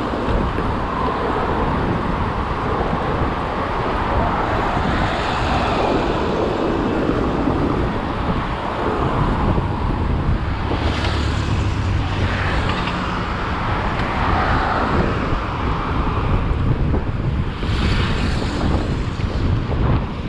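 Continuous vehicle and road noise, with two brief louder whooshes about eleven and eighteen seconds in.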